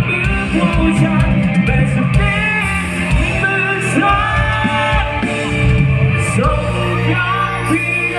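Live Thai retro ramwong dance band playing at full volume, with a singing voice over sustained instrument tones and a steady drum beat.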